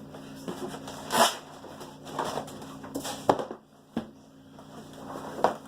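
Cardboard packaging being handled and opened: a few short rustling, scraping swishes with a couple of light knocks.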